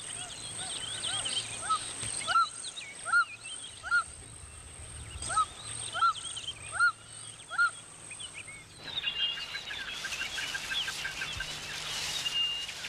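Wild bird calls: a short, arched call repeated about once every two-thirds of a second over a thin, steady high whine. About nine seconds in, the sound cuts to a busier chorus of higher chirping birds.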